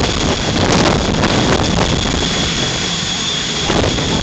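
Jet engine of a jet-powered drag vehicle running on the strip with afterburner flame: a loud, steady rush with a high whine held over it.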